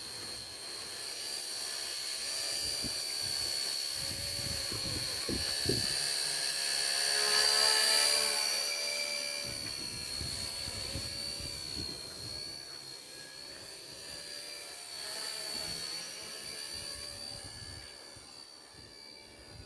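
Small electric motor of a homemade mini remote-control helicopter running, a steady high-pitched whine with the whoosh of its spinning rotor. It grows louder to a peak about eight seconds in, then fades.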